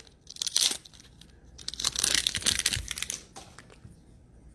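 Plastic trading-card pack wrapper being torn open and crinkled by hand, with a short rustle and then a longer one.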